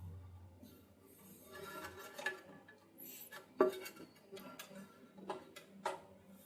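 Scattered light clicks and clinks of plumbing tools and fittings being handled. The sharpest click comes about three and a half seconds in.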